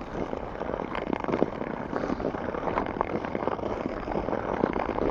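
Ice skate blades scraping and crunching over rough, uneven natural lake ice with a loose top layer, giving many short crackles, over steady wind buffeting the microphone.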